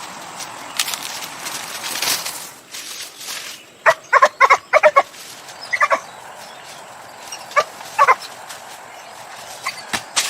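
A dog barking: a quick run of short yapping barks about four seconds in, then single barks near six and eight seconds. Some brushing, rustling noise comes before them.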